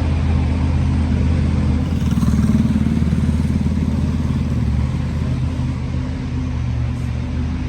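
An engine running at a steady idle with a rapid pulsing beat. It rises a little about two seconds in, then settles back.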